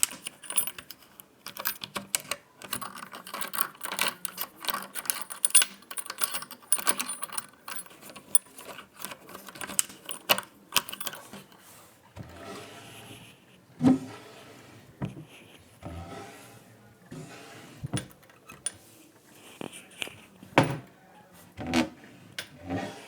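A bunch of metal keys jangling and clinking rapidly for about the first eleven seconds. After that come separate clicks and knocks, several with a dull low thud.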